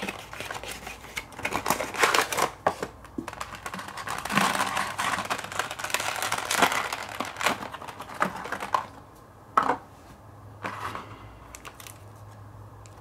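Packaging of a diecast model plane being opened by hand: cardboard and wrapping rustling and crinkling, with handling clicks and knocks. It goes quieter after about nine seconds, with one sharp click near ten seconds.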